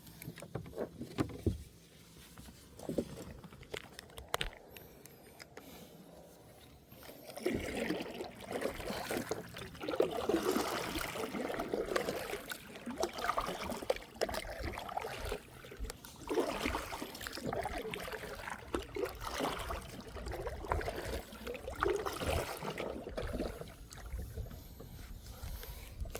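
Water splashing and sloshing around a kayak in uneven surges, with a few sharp knocks in the first several seconds.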